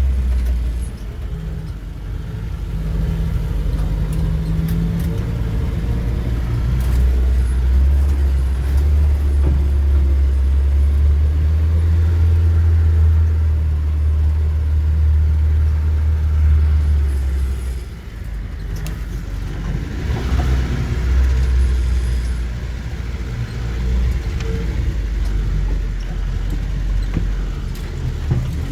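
Vehicle engine running with a deep, steady low rumble, easing off about seventeen seconds in and picking up again a few seconds later.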